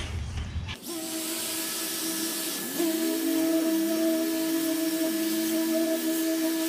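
Electric random orbital sander with dust extraction, running a 600-grit disc over primer-ready body filler and bare metal. About a second in it starts with a steady hiss, and its motor hum rises and settles to a steady pitch.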